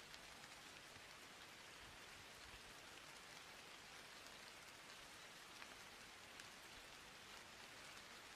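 Near silence: a faint, steady hiss with light crackle.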